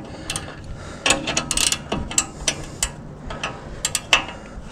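Hand ratchet wrench clicking in short irregular runs as bolts are turned on a truck's front strut assembly.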